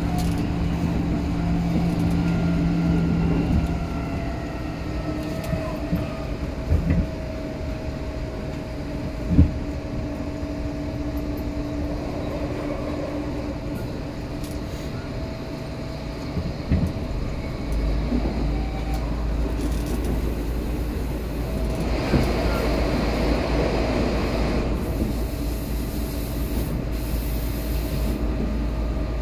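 Interior running sound of an Odakyu 4000-series electric train car in motion: a steady rumble of wheels on track with a steady hum, a couple of brief knocks about 7 and 9 seconds in, and a deeper low rumble setting in about 18 seconds in.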